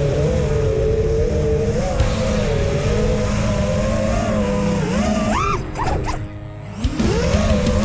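FPV quadcopter's brushless motors and propellers whining, the pitch wavering with the throttle. About five seconds in the pitch climbs sharply on a punch, then the motors drop to near idle for about a second, as in a roll or flip, before spooling back up.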